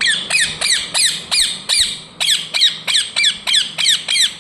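Pet parrot giving a rapid series of short, downward-sweeping squawking chirps, about three a second.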